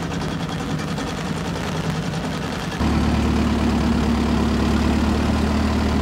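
A boat's engine running steadily with a low hum, stepping up louder and deeper about three seconds in.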